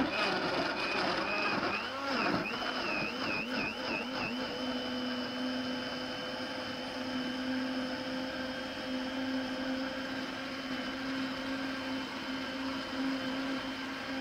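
Electric countertop blender running. Its motor pitch wavers for about the first four seconds, then settles into a steady whine.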